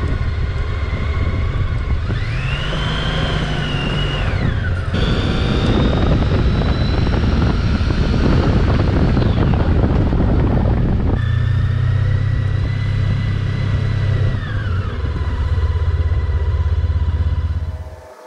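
Honda ST1300's V4 engine running while the motorcycle is ridden, a low steady drone with a whine that rises and falls in pitch with road speed. The sound changes abruptly about five and eleven seconds in.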